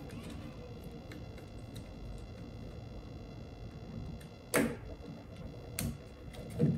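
Screwdriver and hand work on a Dyson V8 vacuum's plastic housing during disassembly: light handling noise, with a sharp plastic click about four and a half seconds in and two lighter clicks near the end.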